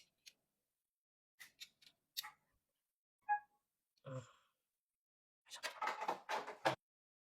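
Small gears and metal parts of a copier fuser drive clicking and clinking as they are handled and fitted by hand: a few separate clicks, a short ringing clink about three seconds in, a duller knock about four seconds in, then a quick rattle of clicks near the end.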